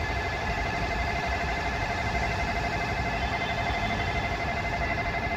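Railway level-crossing warning bell ringing steadily, the signal that a train is approaching the crossing. A low traffic rumble lies beneath it.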